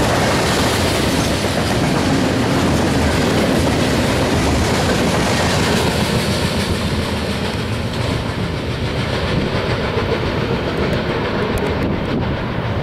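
Freight train of covered hopper cars passing close by at speed: a steady, loud rolling noise of steel wheels on rail, easing slightly over the last few seconds.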